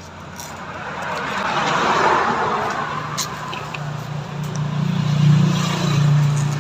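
A motor vehicle going by: a rush of noise that swells and fades, then a steady low engine hum that grows louder near the end.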